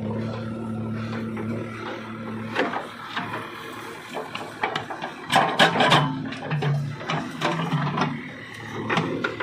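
JCB 3DX backhoe loader's diesel engine running steadily. From about two and a half seconds in, the backhoe bucket scrapes and crunches through stony soil, with a dense run of loud cracks and clatter around the middle.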